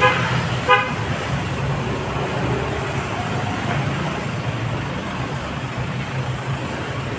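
A vehicle horn gives two short toots about three quarters of a second apart right at the start, over a steady low rumble of traffic.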